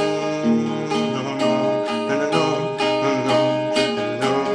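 Acoustic guitar strummed, its chords ringing on between strokes about twice a second, with no singing.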